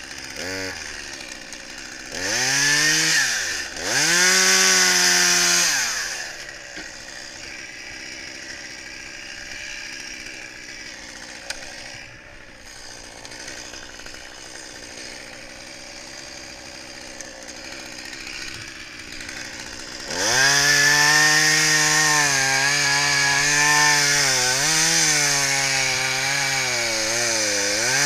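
Chainsaw revved twice briefly, dropping back to a low idle, then from about 20 seconds in held at high revs with a wavering pitch, as when the chain is under load cutting wood.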